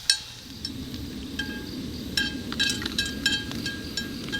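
Light metallic clinks repeating at an uneven pace, each ringing briefly with a clear tone, over a steady low background noise.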